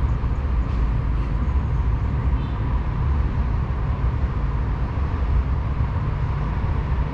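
Steady low rumble of street traffic, with no single event standing out.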